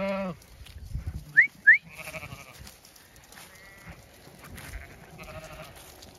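Zwartbles ewes bleating, one close by at the start and others further off later, with two short, sharp rising whistles about a second and a half in. The whistles are the loudest sounds: a shepherd whistling the ewes in.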